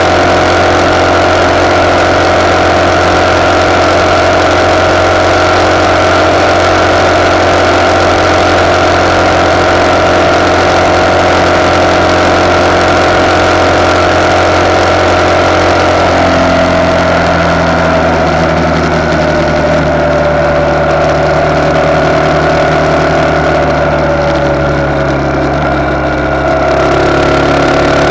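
RPS Hawk 250's single-cylinder engine, with a de-catted CRF230 exhaust, running steadily at cruising speed, picked up by a handlebar-mounted camera's own microphone. About halfway through, the engine note eases and slowly falls, then picks back up near the end.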